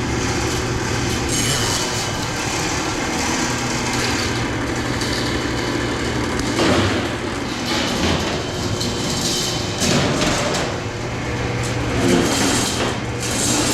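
Steady mechanical hum of boiler-room machinery running, with a few short, louder clattering knocks over it in the second half.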